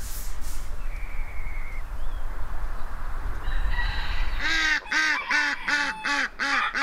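Domestic geese honking in a rapid run of calls, about three a second, starting about four seconds in. Before that, a low wind rumble on the microphone.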